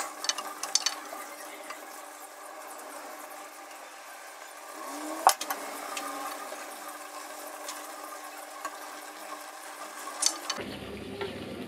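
A pot of sambal simmering in its liquid with a steady bubbling hiss. A wooden spatula stirs and scrapes against the aluminium pot in the first second and again near the end, with a single sharp knock about halfway through.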